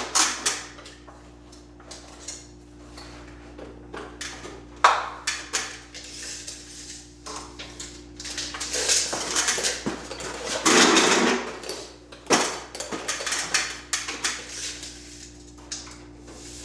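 Clatter, knocks and scraping from handling drywall and hand tools, with a longer scraping stretch a little past halfway. A faint steady hum runs underneath.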